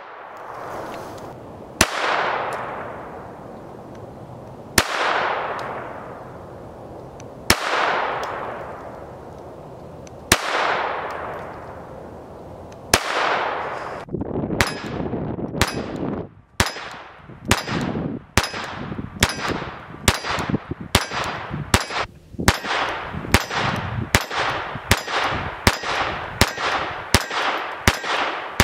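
.22 LR rimfire pistol shots, the first ones from a Glock G44. Single shots come about every three seconds, each followed by a long ringing echo. About halfway in, the firing speeds up to roughly two shots a second and stops just before the end.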